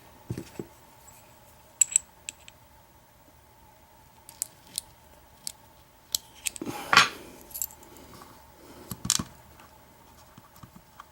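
Small metal clicks and clinks of a padlock and lockpicking tools being handled on a desk during disassembly, scattered and irregular, with a louder knock and rattle about seven seconds in.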